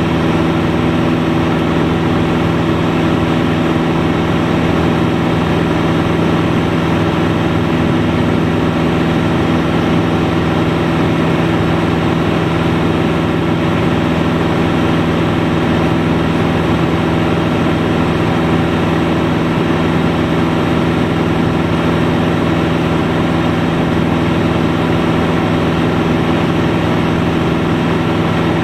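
Light aircraft's piston engine and propeller running at steady power, a constant droning hum heard from inside the cockpit.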